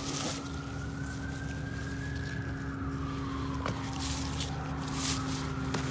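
An emergency vehicle siren wailing in a slow rise and fall, climbing for about two seconds, sinking for about two more, then starting to climb again near the end. It sounds over a steady low hum, with a couple of short clicks.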